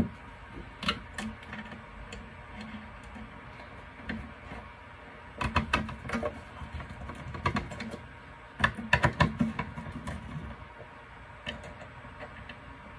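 Scattered light clicks and short rattles from a screwdriver and wire ends being worked at a 12 V power supply's screw terminal block, coming in several brief clusters with quiet gaps between.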